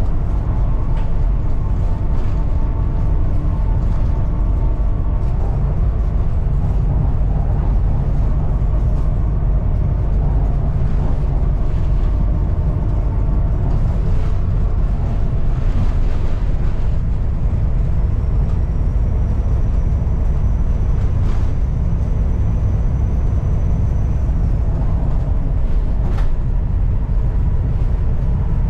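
A Volvo B7TL double-decker bus with a six-cylinder diesel, heard from on board while it runs on the road. There is a steady engine and drivetrain drone, and the body knocks and rattles now and then. A thin high whistle holds for about six seconds past the middle.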